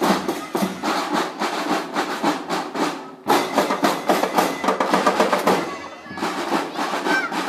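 Marching drum band playing: drums struck in a fast, dense rhythm, dropping away briefly about three seconds in and again near six seconds before the playing resumes.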